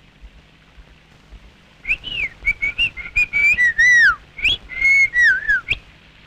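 Whistling: a short tune of clear notes that slide up and down, starting about two seconds in and stopping shortly before the end.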